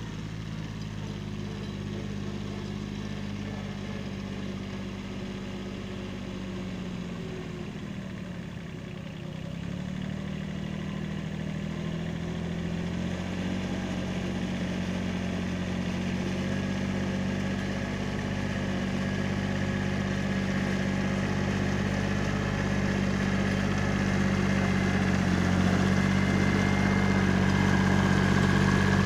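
Kubota B7100 compact tractor's three-cylinder diesel engine running steadily as it pulls a homemade drag box over a dirt driveway, growing louder as it comes closer. The engine note dips briefly about a third of the way in, then steadies.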